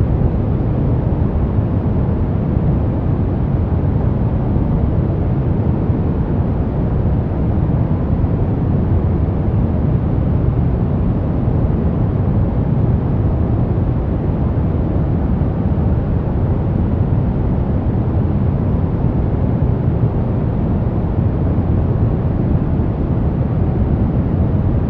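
Steady brown noise: an even, deep rushing hiss, strongest in the bass and dull in the highs, with no changes.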